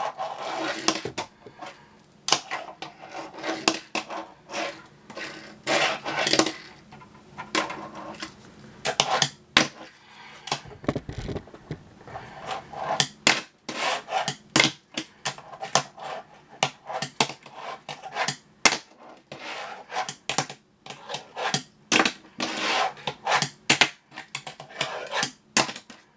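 A fingerboard clacking and rolling on a tabletop as fingers push and knock it about: irregular sharp clicks and knocks, often several a second, with short rolling rubs between them.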